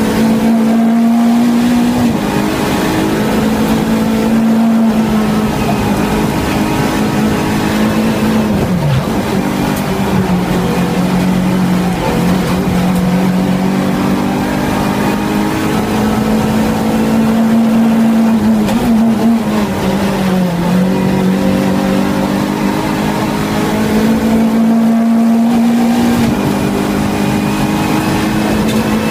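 Renault Clio Cup race car's four-cylinder engine running hard at high revs. The pitch holds steady for long stretches, drops sharply about nine seconds in and again around twelve and twenty seconds, then climbs back.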